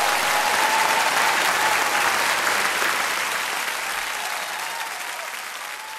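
Audience applauding steadily after a trumpet performance ends, the clapping gradually fading away over the last few seconds.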